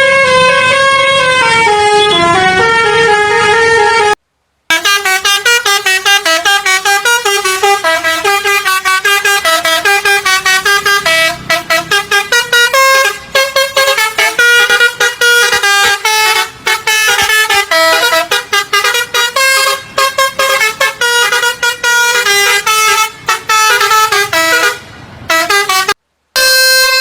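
Indonesian 'telolet basuri' bus horn, a set of musical air horns, playing a tune of stepping notes: slower notes at first, then after a brief cut about four seconds in, fast, choppy repeated notes until another brief cut near the end.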